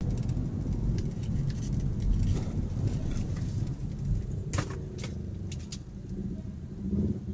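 Car engine and road rumble heard from inside the cabin through a dashcam microphone, low and steady. About four and a half seconds in, a few sharp knocks and clatter as two motorcycles collide and fall on the road ahead.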